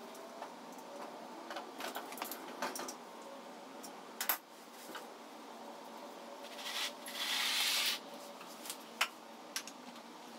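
Scattered small metallic clinks and knocks of tools and parts being handled, the sharpest about four seconds in, with a rushing hiss lasting about a second a little past the middle.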